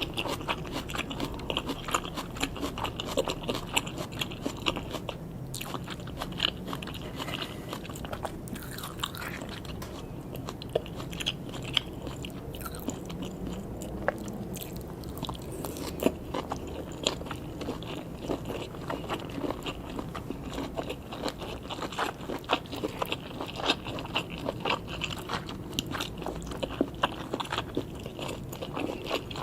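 Close-up eating sounds of sushi: steady chewing and biting with many small, irregular wet clicks and crunches.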